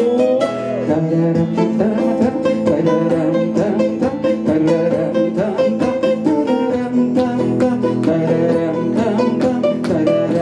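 Instrumental passage of a song played on two guitars, an electric hollow-body guitar and a small acoustic guitar, plucked and strummed at a steady, even level with no sung words.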